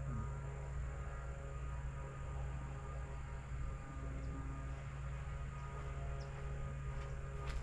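A steady low hum with a faint high whine above it, unchanging, with a couple of faint clicks near the end.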